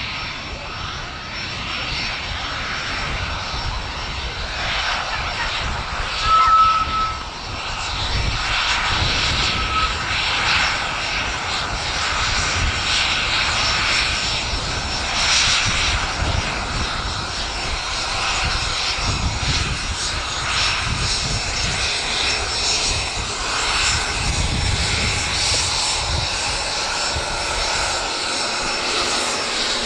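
Cessna 510 Citation Mustang's twin Pratt & Whitney PW615F turbofans running at taxi power: a steady jet rush with a faint high whine. A short high whistle sounds about six seconds in, and again briefly near ten seconds.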